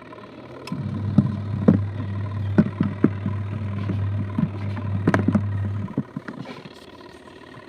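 Adler AD8051 mini washing machine running its wool cycle. The motor starts a low hum just under a second in, runs for about five seconds with scattered knocks over it, then stops, as the gentle cycle agitates in short spells with pauses.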